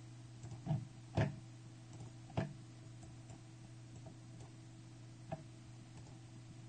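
A few sharp computer mouse clicks, about four, spaced irregularly over a steady low hum.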